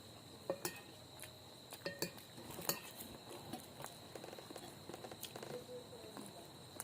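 Spoon and fork clinking against a plate now and then while eating, faint, with a steady high cricket trill behind.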